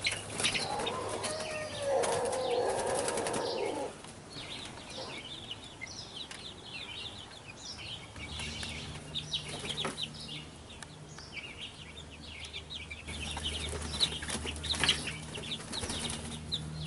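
A group of young chickens peeping and cheeping, with a burst of wing flapping in the first few seconds. A low steady hum comes in about eight seconds in.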